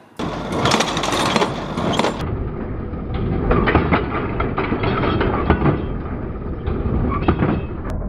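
New Idea inline small square baler running at work: a loud, continuous mechanical clatter with repeated sharp clanks from its moving parts.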